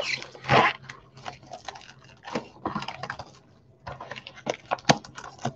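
Crinkling and crackling of a Panini Mosaic trading-card box and its wrapping as it is handled and opened, in irregular bursts with the loudest crackle about half a second in.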